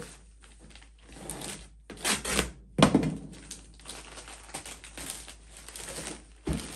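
Plastic mailer bags and cardboard packaging crinkling and rustling as a parcel is unwrapped by hand. The loudest rustling comes about two to three seconds in, with a dull thump among it.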